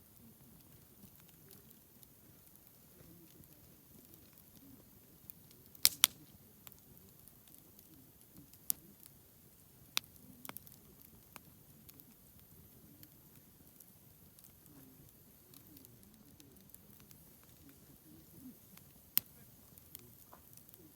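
Wood campfire crackling: scattered sharp pops and snaps, the loudest a quick pair about six seconds in, over a faint low rustle.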